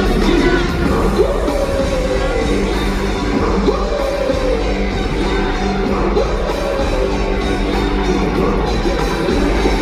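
Live concert music played loud over a stadium PA, with a steady heavy bass line and singing and shouted vocals over it, echoing in a large hall.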